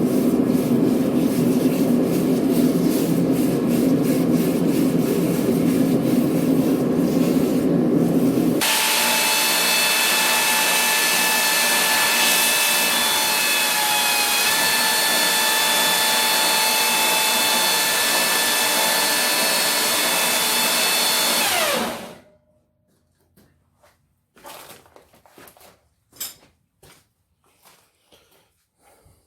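A loud, low, rumbling machine noise cuts off abruptly about 8 seconds in. An electric power tool, such as a grinder, then runs with a steady high whine and winds down to a stop about 22 seconds in. A few faint knocks of metal being handled follow.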